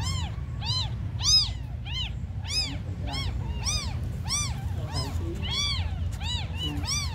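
Several newborn kittens, eyes still closed and left without their mother, mewing constantly: high-pitched cries that each rise and fall, two or three a second and overlapping, over a low steady rumble.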